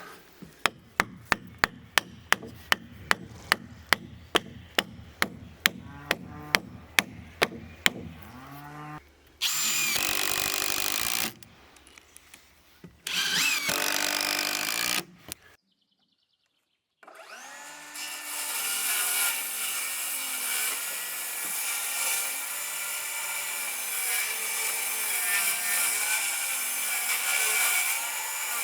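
Woodworking sounds: for about eight seconds a fast run of sharp knocks, about three a second. Then two short bursts of a power tool, and after a brief cut to silence a long steady run of a power tool working wood.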